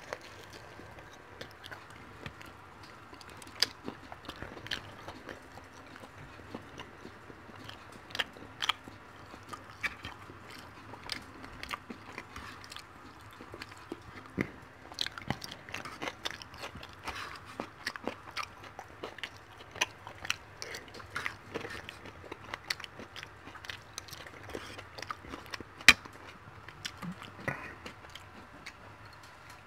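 A person biting and chewing food, fried chicken wings and salad, with many small clicks and crunches. One sharp click a few seconds before the end is the loudest sound.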